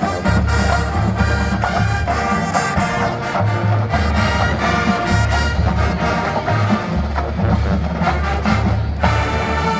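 Marching band playing: brass with a heavy low bass line and drums, with the band moving to new held chords near the end.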